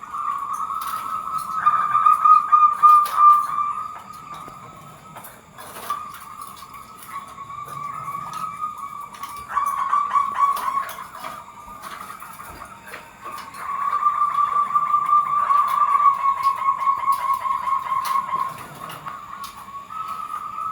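Zebra doves (perkutut) cooing: a string of trilled coos in phrases a few seconds long, with short gaps between them.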